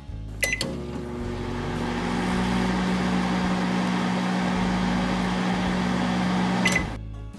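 Small electric oven running with a steady hum. It is switched on with a click about half a second in and off with another click shortly before the end.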